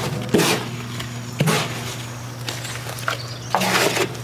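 Short scuffing and handling noises of outdoor garden work with soil and a hose: three or four brief bursts, about half a second in, at a second and a half, and near the end, over a steady low hum.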